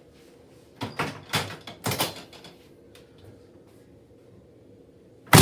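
Knocks and creaks of a chiropractic treatment table as a patient lying on their side is positioned and adjusted: a few short knocks about a second in, then one sharp, loud thud near the end.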